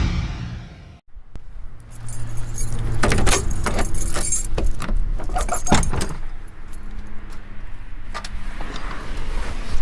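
Car keys jangling, with sharp clicks and knocks as a car door is opened and the keys are handled. The clicks and knocks start about a second in.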